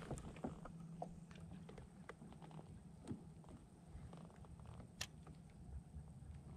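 Quiet scattered clicks and light knocks from handling a spinning rod and reel in a kayak, with one sharper click about five seconds in, over a faint low hum.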